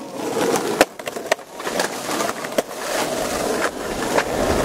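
Skateboard wheels rolling over pavement: a steady, rough rumble with several sharp clicks scattered through it.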